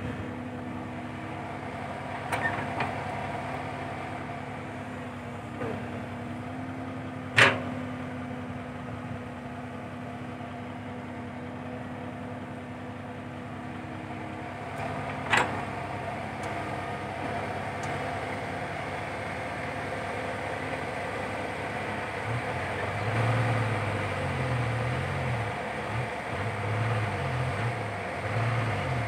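Komatsu PC120-5 hydraulic excavator's diesel engine running steadily while it digs and swings its bucket, with two sharp knocks about seven seconds in and again about eight seconds later, the first the loudest, and fainter ones near the start. A deeper, uneven rumble comes in during the last seven seconds.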